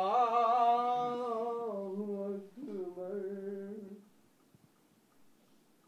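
A man's voice chanting Islamic congregational prayer recitation in two long, drawn-out phrases. It stops about four seconds in.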